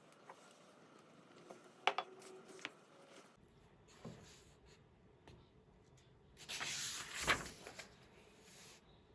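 Small clicks and knocks of things being handled in a small room, with a louder rustling burst and a knock about seven seconds in.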